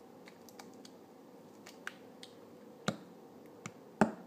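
Freshly mixed, wet glue-and-activator slime being poked and lifted with a stick on a paper plate: scattered small sticky clicks and pops, the loudest about four seconds in.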